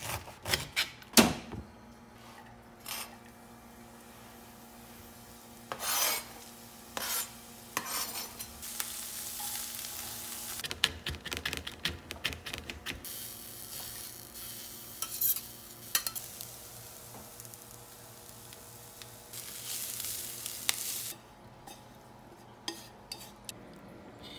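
Knife chopping greens and garlic on a cutting board in sharp clicks and knocks, with two stretches of hissing sizzle as the greens and garlic are sautéed and stirred in a pan.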